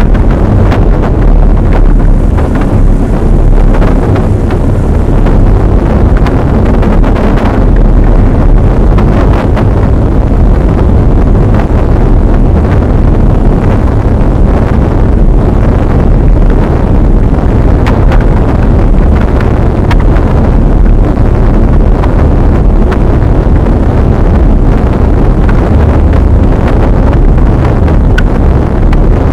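Wind buffeting the microphone: a loud, steady rumbling noise heaviest in the low end, with no voices.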